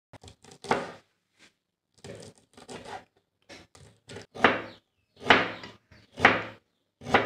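Large steel kitchen knife chopping green chillies and then ginger on a wooden chopping board: an irregular run of blade-on-board thuds, some light and quick, with a few heavier chops about a second apart in the second half.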